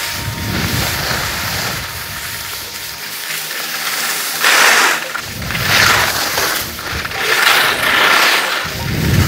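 Rossignol skis scraping and hissing over packed snow as the skier turns, with four or five swishes in the second half, one per turn, and a low rumble of wind on the microphone.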